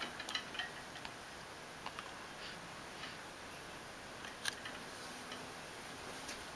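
Quiet room tone with a few faint, scattered clicks and ticks, the sharpest about four and a half seconds in.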